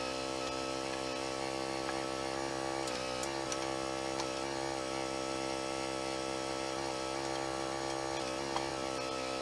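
An engine running steadily at constant speed, with brief slight dips in pitch about three seconds in and near the end, as under momentary load.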